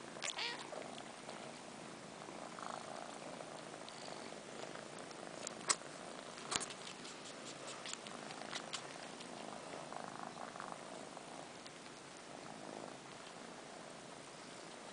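Kittens purring steadily, with wet slurping and sucking clicks as a kitten suckles on its own long fur in place of its mother's nipple. A few sharp clicks stand out, the loudest two around six seconds in.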